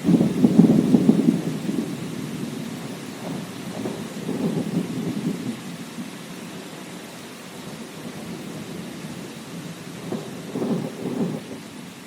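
Thunder rolling over steady rain: a loud rumble right at the start, another about four seconds in, and a third near the end.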